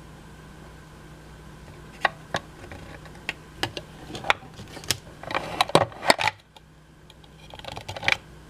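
Small plastic toy pieces clicking and clattering, a string of sharp taps and short rattles as Shopkins figures are handled and set into a plastic toy fridge, over a faint steady hum.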